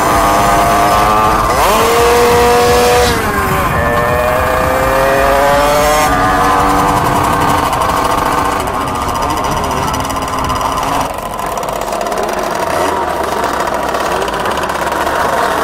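Motorcycle engine accelerating under way, its pitch climbing and then dropping back at each gear change, several times over.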